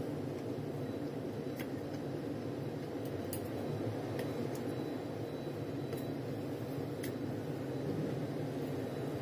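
Steady low mechanical hum, even in level throughout, with a few faint small clicks scattered through it.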